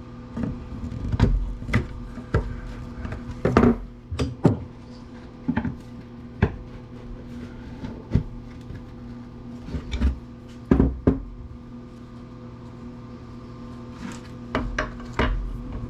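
Irregular clicks and knocks of hand tools working on the parts of a Black & Decker wood planer being taken apart, with a steady low hum underneath. The loudest knocks come in clusters about four seconds in and again about ten seconds in.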